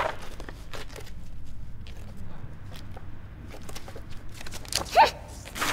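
A sheet of paper being torn and crumpled by hand: a sharp rip at the start, then soft crackling, with a short, louder sound near the end.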